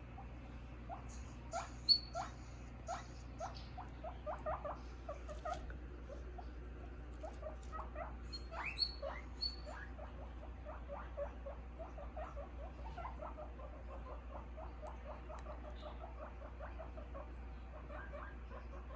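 Guinea pig chewing: a fast run of small crunching clicks, with a sharper, louder sound about two seconds in.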